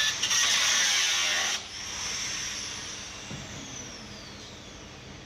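Loud rushing hiss that cuts off suddenly about one and a half seconds in. A fainter hiss follows, with a thin tone sliding slowly down in pitch as it fades.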